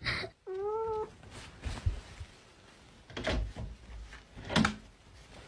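A short held tone about half a second in, then a few knocks and rattles about a second and a half apart, like a cat pawing at a metal window latch handle.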